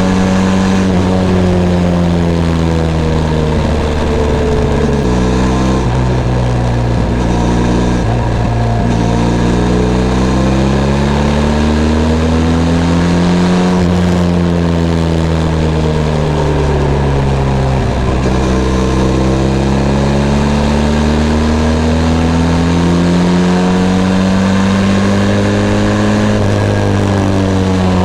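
Benelli TRK 502 X's parallel-twin engine under way. Its pitch sinks and climbs in long, slow sweeps as the throttle is rolled off and opened again, with a sudden step in pitch about five seconds in.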